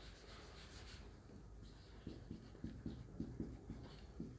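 Marker pen writing on a whiteboard: faint squeaks and scratches from short pen strokes, coming quickly one after another from about halfway in.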